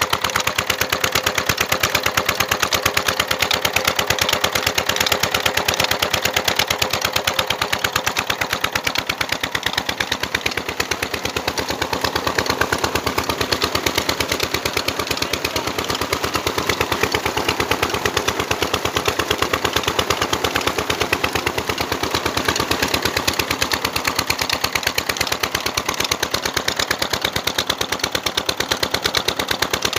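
Stationary single-cylinder diesel engine of a tubewell running steadily under load, its exhaust giving a rapid, even knocking, while driving the pump by a flat belt. Pumped water rushes from the delivery pipe beneath it.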